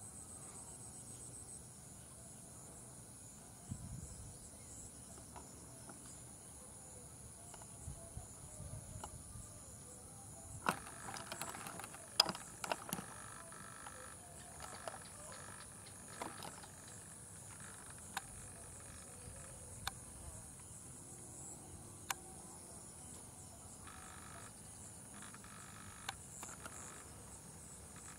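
Steady high-pitched insect chorus, with scattered sharp clicks and snaps over it, a cluster of them near the middle and single ones later.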